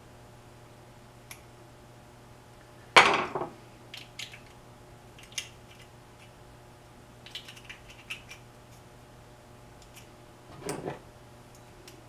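Small plastic wiring connector and its wires being handled and pressed together, giving scattered clicks and light rattles. A sharp knock about three seconds in is the loudest sound, with another louder clatter near the end. A faint steady hum runs underneath.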